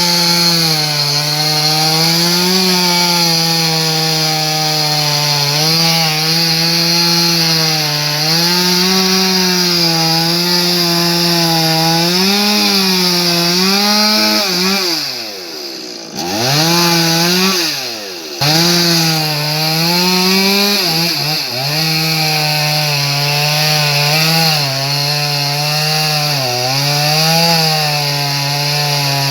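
Chainsaw cutting into a large tree, its engine held at high revs with the pitch wavering as the chain works under load. About halfway through, the revs fall off sharply twice and climb back before cutting resumes.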